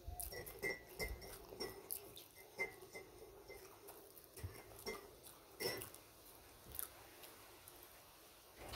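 Metal teaspoon stirring in a ceramic mug, clinking lightly against the side about twice a second for the first several seconds, among faint small clicks.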